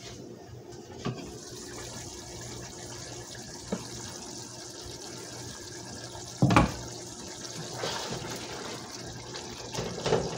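Pot of beef and tomatoes simmering on a gas stove, a steady bubbling hiss with a faint low hum under it. A few light clicks, a louder clank about six and a half seconds in as the pot is opened and handled, then a spatula stirring in the pot near the end.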